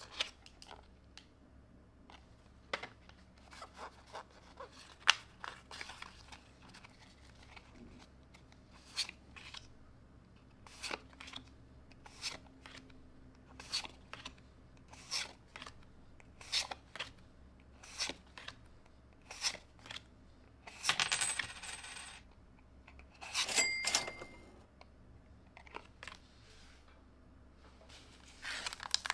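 Trading cards being flicked off a stack one at a time, each with a soft snap, at about one a second. A little past the middle come two longer clattering scuffles with a brief ringing tone, and near the end a foil booster pack crinkles as it is picked up.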